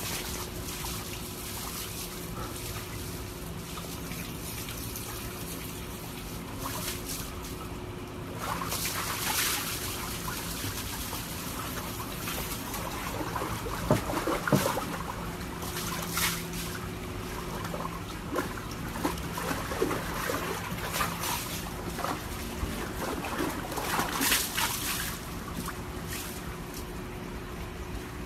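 Water sloshing and splashing in a plastic tub as a husky sits and moves about in it, in short bursts with quieter stretches between.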